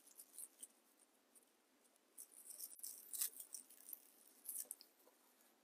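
Faint, soft rustling and crinkling of dry raffia strands being wrapped and tied by hand, a few scattered rustles mostly in the second half.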